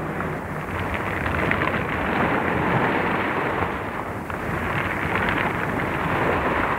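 Rough sea surging and breaking, a steady rushing noise, heard through an old off-air radio recording with its muffled, narrow sound.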